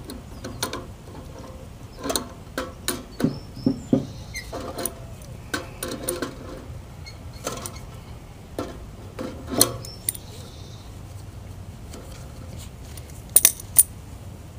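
Irregular metal clicks, knocks and scraping as a hand tool works at the hub of a squirrel-cage blower wheel inside its sheet-metal housing, with two sharp clicks near the end.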